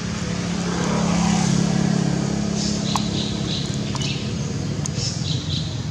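A steady low engine hum swells over the first couple of seconds and then eases off a little. Short high chirps come in from about halfway through.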